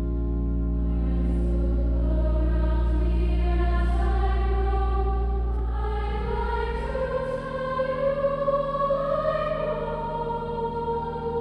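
Choir singing a slow, sustained passage in a reverberant cathedral, the voices climbing in pitch over a deep held bass note that stops about seven seconds in.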